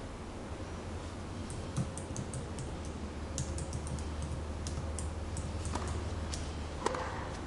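Tennis ball struck by a racket on a serve about six seconds in, and struck back about a second later. Before the serve comes a scatter of quick, light clicks over a steady low hum.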